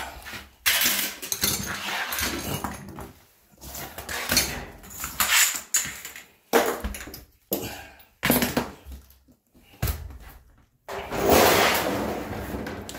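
A galvanized sheet-metal drip pan being handled and set down on a vinyl floor: irregular rattles, scrapes and several sharp knocks, with a longer scraping noise near the end.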